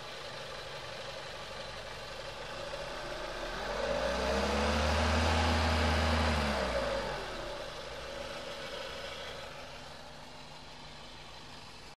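Renault Mégane II engine idling, revved once about four seconds in and falling back to idle about three seconds later. This is the engine noise its owner finds strange.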